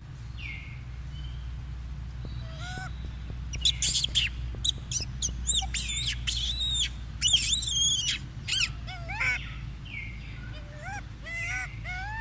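Macaques giving a rapid run of loud, high-pitched squealing calls from about three and a half seconds in, then shorter rising-and-falling squeaky calls near the end, over a steady low rumble.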